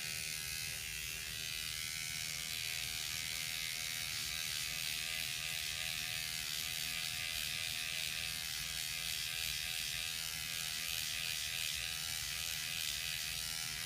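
Rejuvapen electric microneedling pen running steadily, a motor buzz whose pitch wavers slightly as the needle tip is worked over the skin.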